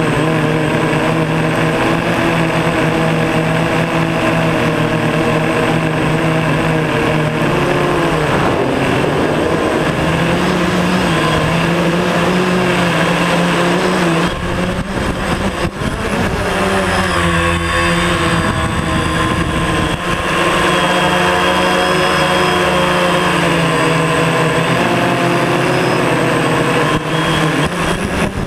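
DJI Phantom quadcopter's motors and propellers whining steadily, heard close up from the GoPro mounted on the drone. The pitch shifts several times, and the level dips briefly about halfway through.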